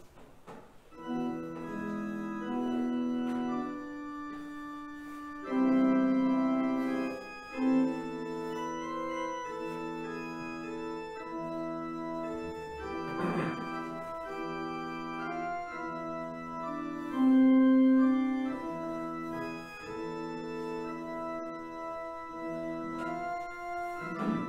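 Church organ playing a hymn tune in sustained chords, starting about a second in: the hymn just announced for the service.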